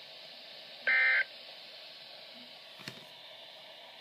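NOAA Weather Radio EAS end-of-message code: a short, buzzy two-tone digital data burst about a second in, the last of three sent a second apart, closing the warning. Then steady radio hiss with a single click near the end.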